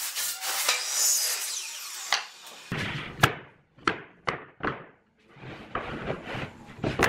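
Long pine boards handled on a wooden workbench: scraping and rubbing of wood on wood, then a quick series of sharp wooden knocks as the boards are set down, the loudest about three seconds in.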